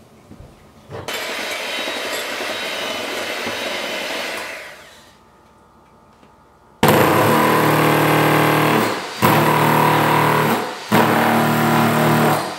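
Electric jackhammer running in three runs of about two seconds each, stopping briefly between them. Before it, from about a second in, a steady rushing noise that fades out.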